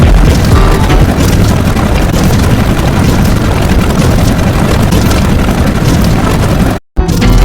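Loud, dense noise with a heavy low rumble, unbroken and without any clear tone, that cuts out completely for a split second near the end before resuming.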